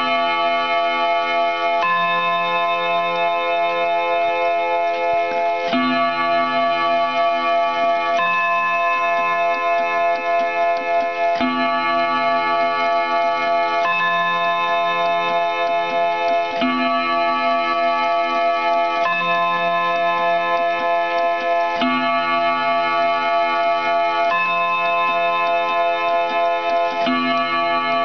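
Juba mantel clock sounding its gongs: a stroke about every two and a half seconds, each one ringing on with several overlapping tones until the next.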